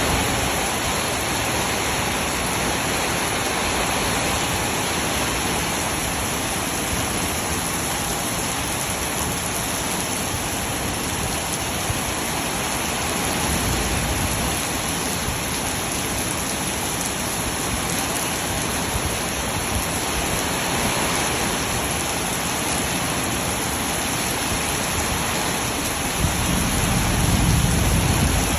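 Heavy rain pouring steadily during a storm. A low rumble swells about halfway through and again, louder, near the end.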